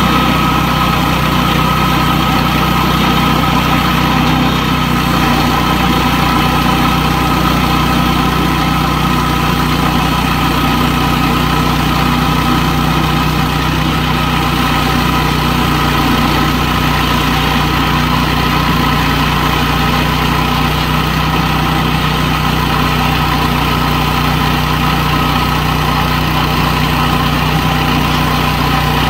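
Small gasoline engine of a Woodland Mills HM122 portable bandsaw sawmill running steadily at constant speed.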